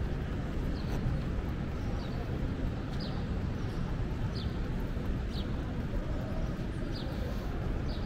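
Street ambience with a steady traffic rumble. Over it, a bird repeats a short, high, falling chirp about once a second.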